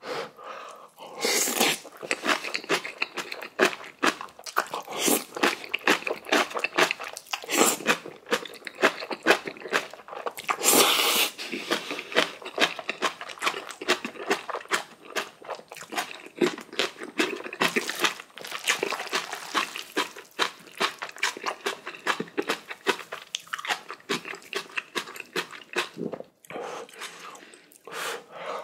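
Close-up eating sounds of Chapagetti black bean noodles and spicy kimchi being crunched and chewed: dense, irregular wet mouth clicks, with a few louder noisy stretches of about a second each.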